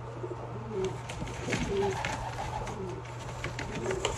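Racing pigeons cooing, short low coos about once a second, with clicks and knocks of handling.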